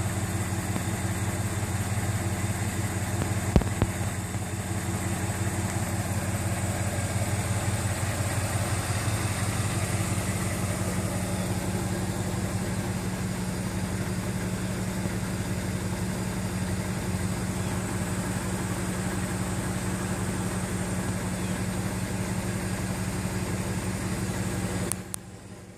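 1960 Bentley S2's V8 engine idling steadily, with one short sharp knock about three and a half seconds in.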